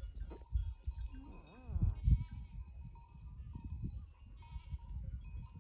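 A single long, wavering bleat from a sheep or goat of the flock, about a second in, over a steady low rumble.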